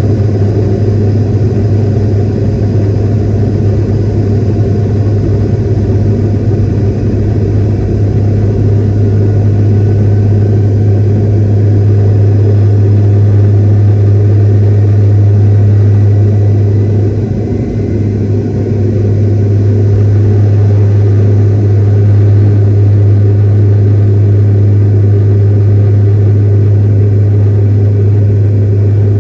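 Jet airliner cabin noise from a window seat: a steady, loud rumble of engines and airflow with a low hum, dipping briefly about two-thirds of the way through.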